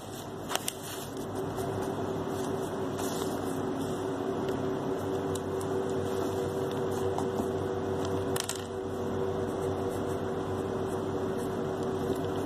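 Steady machine hum with a constant tone, like a room fan or air conditioner running. A couple of short clicks come from handling the notebook and pen: one just after the start as the page is turned, and one about eight seconds in before writing begins.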